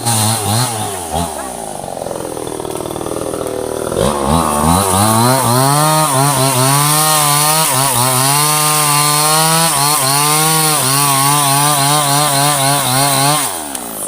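Two-stroke chainsaw running at lower revs for the first few seconds, then opened up to full throttle about four seconds in and held there under load, its pitch wavering as it cuts through a teak log. It drops off near the end.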